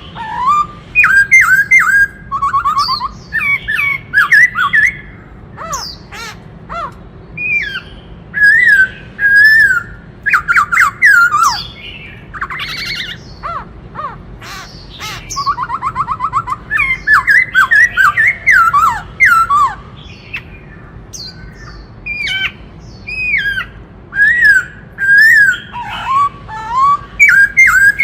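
Black-throated laughingthrush singing: loud whistled phrases of rising and falling notes, delivered in bursts with short pauses, mixed with a few fast rattling trills.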